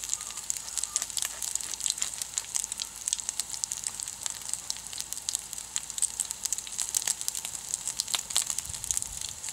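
Bacon frying in a pan over a wood fire: a steady sizzle with many sharp crackles and pops.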